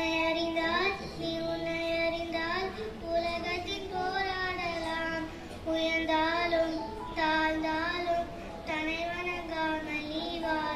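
A young child singing a melody in one clear voice, in short phrases with slight wavering on the held notes.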